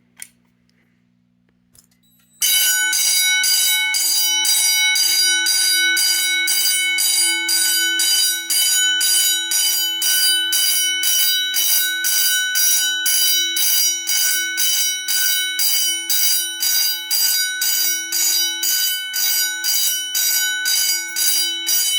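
Edwards 439D-10AWC vibrating fire-alarm bell, driven by a fire-alarm panel, starts ringing loudly about two and a half seconds in. It sounds in rapid, even pulses: the march-time pattern of a fire-alarm signal.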